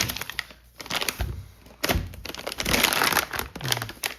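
Plastic filament packaging crinkling and crackling as a PLA spool is unwrapped, with a couple of dull knocks.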